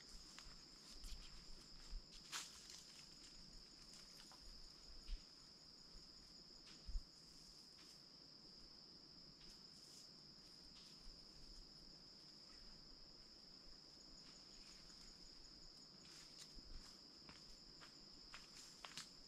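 Steady high-pitched insect drone of forest crickets, with a fainter pulsing trill above it. Scattered soft rustles and clicks come from handling the tarpaulin and rope, with a sharp knock about seven seconds in.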